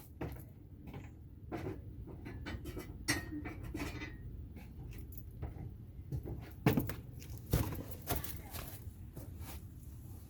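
Scattered light metallic clinks and knocks as a riding mower blade and its mounting hardware are handled and fitted, with a few louder knocks in the second half.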